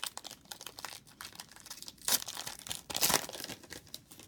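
Trading card pack wrapper being crinkled and torn open, a rapid run of crackles with two louder crinkles about two and three seconds in.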